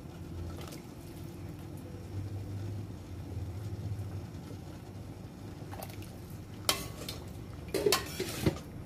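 A steady low rumble from the pot of broth heating on the gas stove, with a metal ladle knocking and scraping against the stainless steel pot a few times in the last three seconds as the soup is stirred.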